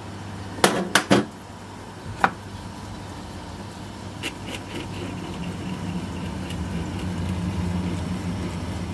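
Lathe running with a steady hum, with four sharp knocks in the first couple of seconds as its handles or tool are worked; the running sound grows a little fuller from about four seconds in.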